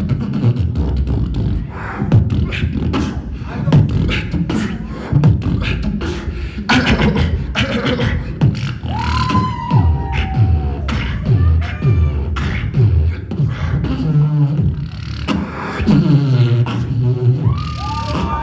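Beatboxing amplified through a handheld microphone: a fast stream of kick and snare sounds with repeated falling bass sweeps. Pitched vocal tones are layered in about halfway through and again near the end.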